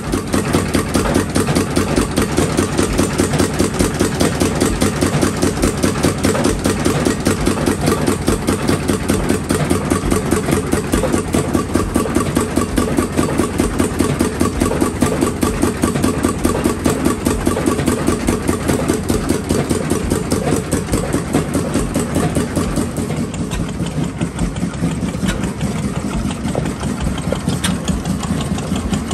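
An old stationary engine running steadily, its exhaust and moving parts beating in a rapid, even rhythm.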